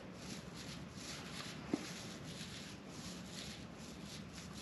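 Small paint roller worked up and down a fibreglass boat hull: a faint, rhythmic swishing of strokes, about two a second, with one short click a little under two seconds in.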